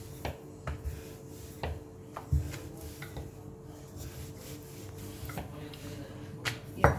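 Parotta dough being handled on a stone counter: scattered soft taps and rubbing, with a louder knock near the end. A faint steady hum runs underneath.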